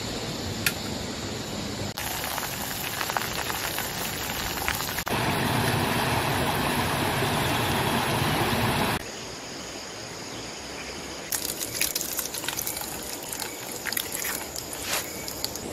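A series of short outdoor sound clips: steady background noise, then a river rushing over rocks for about four seconds, then a cut to frying in a small pan over a camp stove, with sharp crackles and pops.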